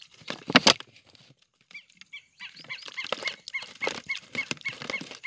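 An animal calling over and over, short calls about three a second from about halfway through, after a loud sudden sound about half a second in.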